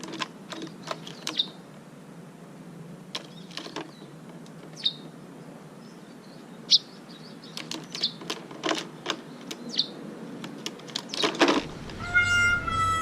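Bird giving short, sharp chirps every second or two, mixed with scattered clicks and knocks. Music comes in near the end.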